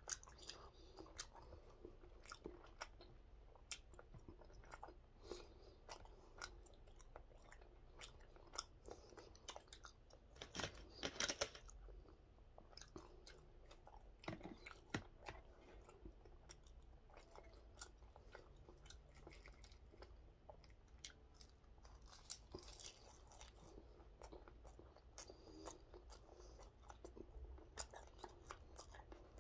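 Quiet chewing and crunching of a mouthful of gwamegi, with many short soft clicks scattered through. A louder run of crunches comes about ten to eleven seconds in.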